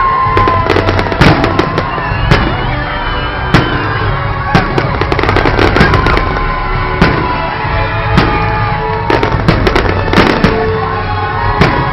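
Fireworks display bursting, with many sharp bangs and crackles several times a second, over loud music.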